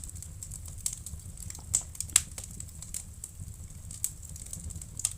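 Wood fire crackling in a fireplace: irregular snaps and pops, with a couple of louder ones about two seconds in, over a low steady rumble.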